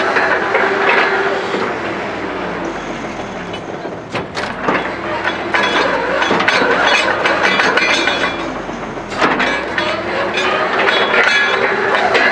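Truck-mounted borewell drilling rig running, its engine and air compressor making a loud, steady mechanical din with a constant hum, broken by sharp metallic knocks and clanks from the drill rods and mast, a few of them a little after 4 seconds in and again about 9 seconds in.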